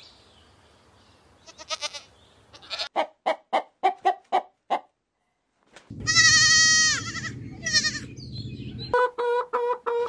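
Goats bleating: a rapid string of short bleats, then a loud, long bleat from a young kid about six seconds in and a shorter one after it. Chickens start clucking near the end.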